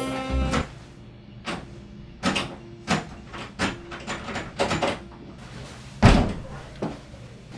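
A locked room door with a lever-handle lock being yanked and shaken, rattling and knocking against its frame in a string of short knocks, with a heavier thump about six seconds in.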